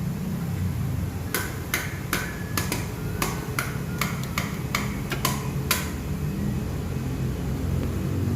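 About fourteen sharp taps, irregularly spaced at roughly two to three a second, over a steady low hum; the taps stop about two-thirds of the way through.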